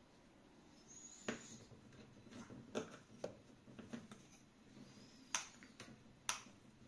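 Small pliers gripping and pulling old, worn nails out of a wooden block: about five sharp, separate clicks, the loudest two about five and six seconds in.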